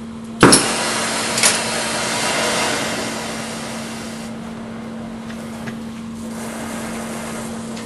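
Brazing torch lit with a sharp pop about half a second in, then the flame burning with a steady rushing hiss that eases off a few seconds later.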